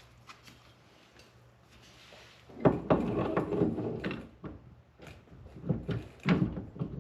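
Metal parts knocking and clattering as they are handled and fitted together. A sudden loud burst of clatter starts between two and three seconds in, and a second cluster of knocks follows near the end.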